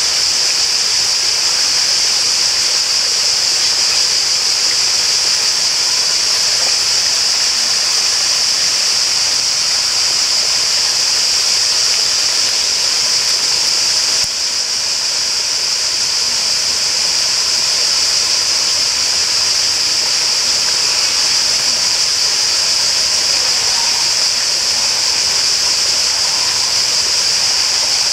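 Steady rush of running water, with a dense, even high-pitched hiss over it that holds level throughout and dips slightly about halfway through.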